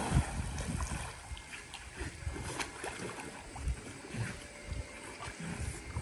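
Water sloshing and lapping as a retriever swims, with wind buffeting the microphone in irregular low gusts.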